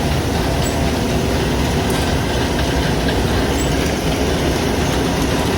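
Combine harvester running steadily during the wheat harvest, its engine and machinery making a continuous loud noise with a faint steady hum.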